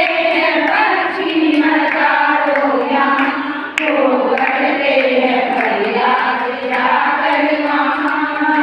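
A group of women singing a Jain aarti hymn together in unison, clapping their hands in time with the song.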